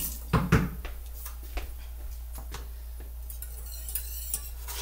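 Kitchen utensils and saucepans clinking and knocking: two sharp knocks about half a second in, then scattered lighter clicks and taps.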